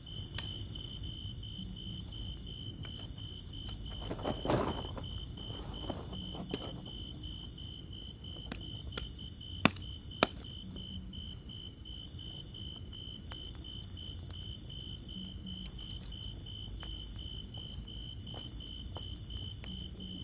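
Insects, crickets among them, calling steadily, one with an even pulsing trill of about four pulses a second over higher chirping. A short rustle sounds about four seconds in, and two sharp clicks half a second apart come near the middle.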